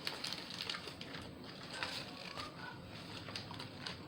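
Close-miked chewing of a veggie sub sandwich: a run of soft crunches and wet mouth clicks.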